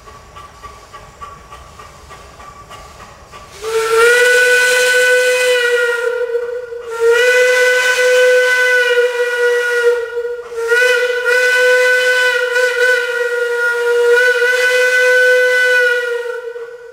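Steam locomotive whistle blowing three long steady blasts, the last the longest, starting about three and a half seconds in. Before the first blast the locomotive is heard only faintly as it runs toward the listener.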